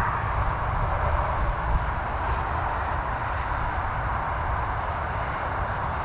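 Wind buffeting a body-worn camera's microphone: a steady rushing noise with an uneven low rumble.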